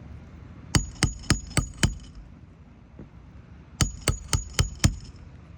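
Hammer blows on a metal shingle tool driving a roofing nail into a replacement 3-tab asphalt shingle: two runs of five quick strikes, about four a second, each with a high metallic ring.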